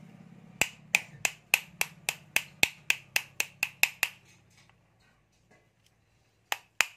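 Rapid metallic taps, about four a second, of a metal blade knocking the steel E and I laminations of a small transformer core to drive them in and seat them flush. The tapping stops about four seconds in and starts again near the end.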